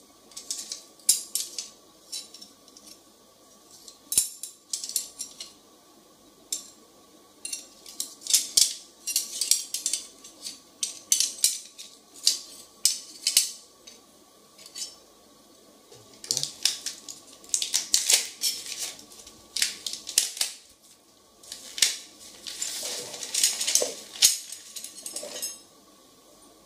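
Steel wood-carving chisels clinking and clattering against one another as a bundle of them is handled, separated and laid down, in quick irregular clinks with short pauses between handfuls.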